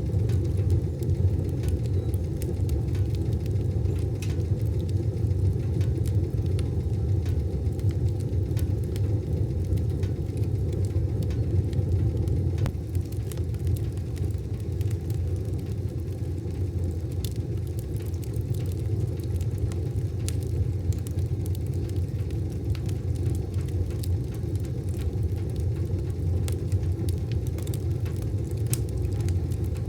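Wood fire burning in a wood stove: a steady low rumble with scattered small crackles and pops.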